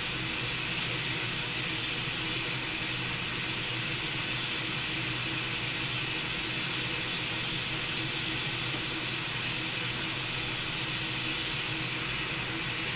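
Hot air rework station blowing a steady hiss of air, set to 480 degrees to melt the solder under a laptop motherboard connector so it can be lifted off.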